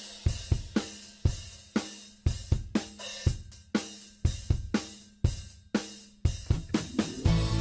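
Music: a drum-kit intro with cymbal, snare and bass-drum hits about twice a second, joined near the end by bass and fuller backing instruments.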